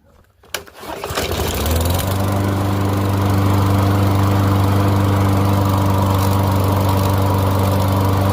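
Lawn mower engine starting about a second in, rising in speed, then running steadily, not yet fully warmed up.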